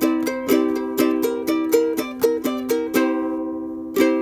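Intro music on a plucked string instrument: a quick run of picked notes and chords, then a chord left ringing about three seconds in and struck once more just before the end.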